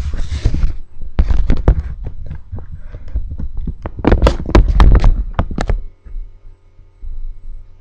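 Handling noise from a camera's built-in microphone: irregular bumps, knocks and rubbing as the camera is moved about. The noise stops about six seconds in, leaving a faint steady hum.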